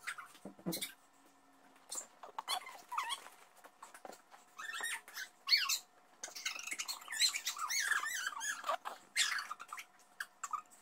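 Young children's high-pitched squeals and shrieks, one after another with short pauses between, denser in the second half.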